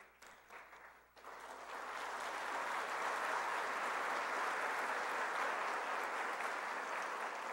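An audience applauding, starting about a second in, building to a steady level and tapering off near the end.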